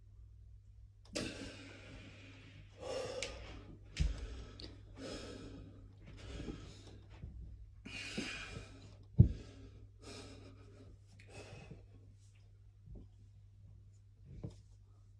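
A man's heavy breathing while he holds flexed bodybuilding poses: forceful exhalations and gasps every second or two, over a steady low hum. Two dull thumps, the louder about nine seconds in.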